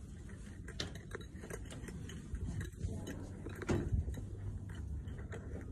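Handling noise from a phone carried by someone walking: scattered light clicks and knocks over a low rumble, with a louder thump about four seconds in.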